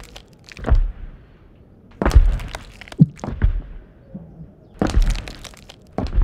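Heavy stomping footstep sound effects from a giant walking in high heels: a series of deep thuds with a cracking edge, about one every second and a half.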